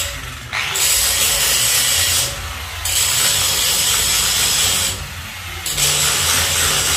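Electric angle grinder working against a steel window grill, grinding in three long passes. Between the passes it eases off the metal for about half a second without stopping.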